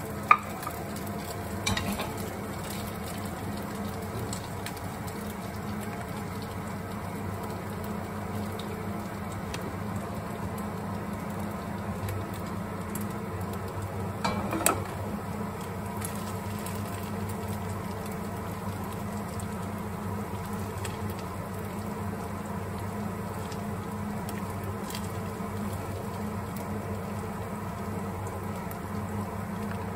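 Food sizzling steadily in a pan on a gas stove. There is one sharp knock just after the start, a smaller clatter about two seconds in, and a few more knocks about halfway through.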